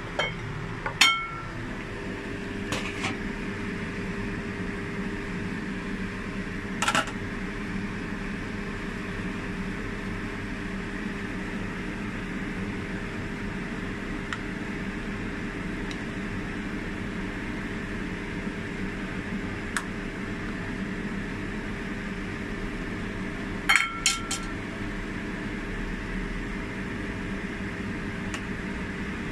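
Kitchen clatter: a few ringing clinks of a utensil against a cooking pot and ceramic dishes, the sharpest about a second in and a quick cluster toward the end, over a steady hum and soft hiss from the stove where a pot of soup is boiling.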